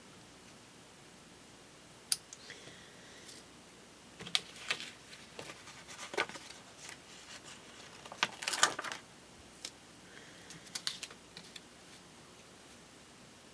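Scattered small clicks, taps and rustles of paper and stickers being handled at a craft table, loudest in a cluster past the middle.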